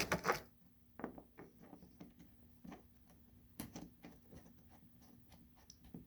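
Faint, irregular small taps and clicks of hands and a tool working epoxy putty on a plastic kayak hull, after a brief louder handling clatter at the very start.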